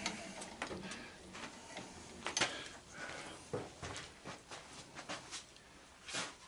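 Scattered light clicks and knocks of hand tools and metal parts being handled and set down at a workbench, with no steady machine sound.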